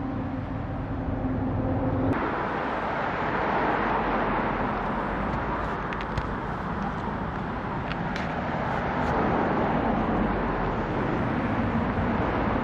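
Steady outdoor background noise like road traffic. A low hum changes suddenly about two seconds in to a louder, even rushing noise, with a few faint clicks.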